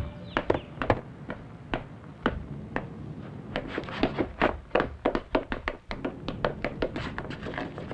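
Footsteps running on pavement: a series of sharp taps, sparse at first and quicker from about halfway through.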